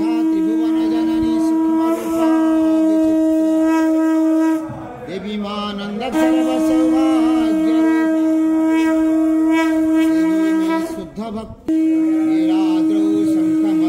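Conch shell (shankha) blown in long, steady blasts on one held note, each about five seconds long, with short breaths between. One blast ends about four and a half seconds in, the next runs from about six to eleven seconds, and a third starts near the end, all sounded during the lamp aarti.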